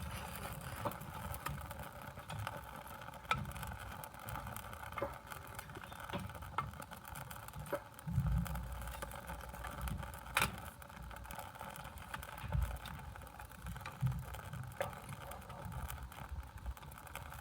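Repeated puffs of breath blown into a smouldering tinder bundle to bring the flint-and-steel ember to flame, with scattered small clicks and crackles.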